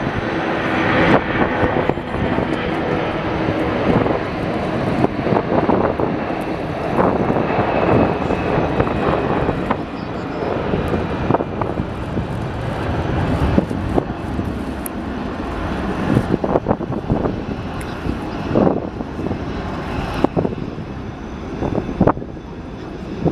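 Jet airliner engines running with a steady roar, with gusts of strong wind buffeting the microphone.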